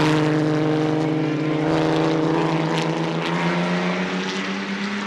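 Pre-war racing car engines, the ERA R4A and a Riley ERA, passing at speed, their engine note held steady and slowly fading as the cars draw away.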